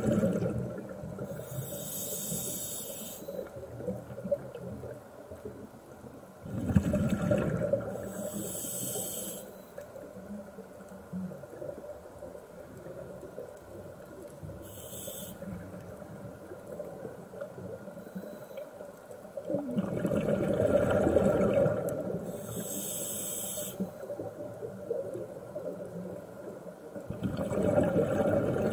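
Scuba regulator breathing heard underwater: about four breaths, each a loud bubbling rush of exhaled air alternating with a high hiss of the regulator, a breath every several seconds.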